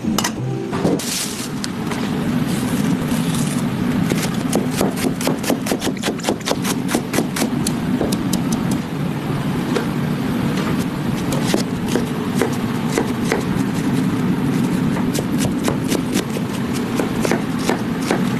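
Restaurant kitchen noise: a steady low rumble with a run of quick, sharp taps and clatter over it, densest from about four to nine seconds in.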